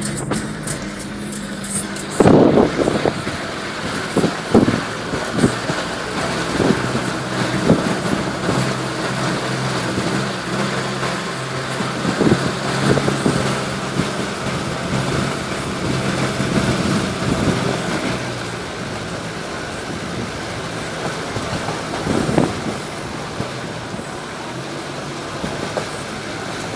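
Car driving on a gravel road heard from inside the cabin: the engine runs steadily under a constant rumble of tyres on loose gravel, with occasional knocks and jolts from bumps in the road.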